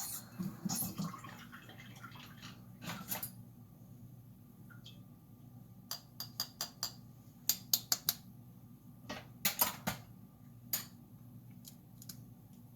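Kitchen utensils and dishes clinking and tapping, in several quick runs of sharp clicks about halfway through, over a low steady background hum.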